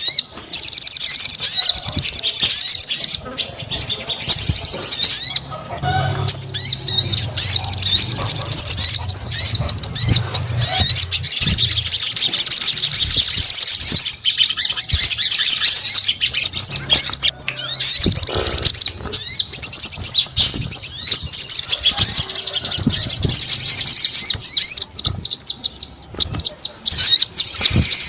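A sogon songbird singing in full song: a fast, high, chattering warble with only short pauses.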